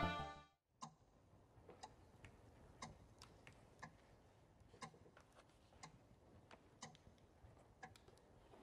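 Rubik's cube being twisted: a run of light, irregular plastic clicks, about one or two a second, as its layers turn. Music fades out within the first half second.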